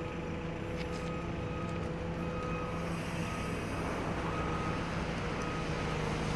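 JCB backhoe loader's diesel engine running under load as it works its loaded bucket, with a reversing alarm repeatedly beeping over it.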